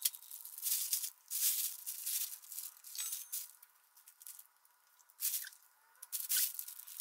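Plastic bag liner crinkling and rustling as hands dig radish kimchi out of it, in a run of short irregular bursts with a quieter lull around four to five seconds in.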